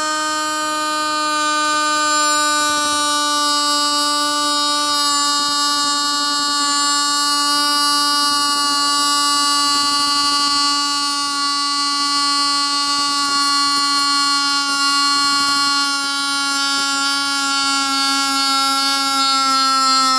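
Small electric motor and fan of a homemade mini vacuum cleaner running with a steady, buzzing whine. Its pitch sinks very slowly throughout, then dips more sharply at the very end.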